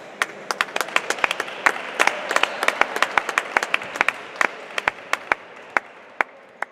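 Scattered clapping from a small crowd of basketball spectators: irregular claps that thicken over the first couple of seconds and thin out toward the end.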